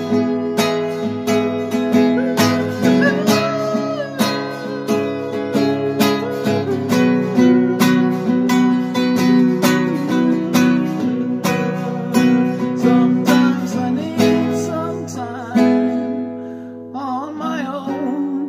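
Nylon-string classical guitar strummed in steady chords, the strumming thinning out near the end.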